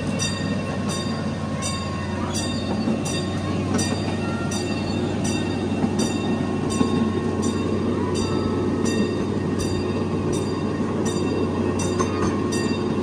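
Miniature ride-on train running along its narrow-gauge track: a steady low rumble and hum, with a regular light click about twice a second.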